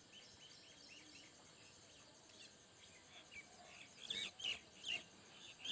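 Faint bird chirps in the background, short high calls repeating, with a few louder ones about four seconds in.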